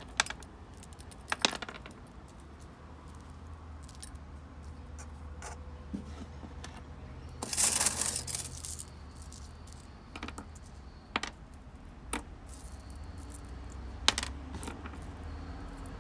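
Small pebbles clicking against each other as they are handled and set around potted succulents: scattered sharp clicks, with a longer rattle of stones about halfway through, over a faint low hum.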